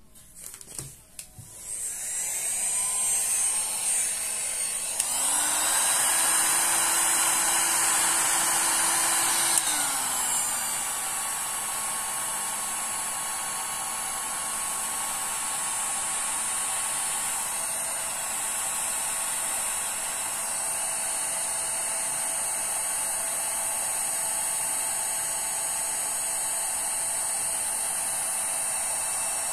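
Electric heat gun switched on, its fan motor whining with a steady rush of air. About five seconds in it runs higher and louder, then drops back around ten seconds in and runs on steadily.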